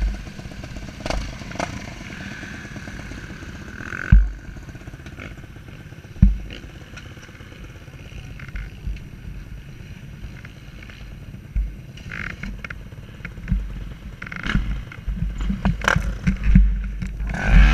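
KTM 300 two-stroke dirt bike engine running at low speed, with a few sharp knocks from the bike over rough ground about four and six seconds in and busier clatter near the end.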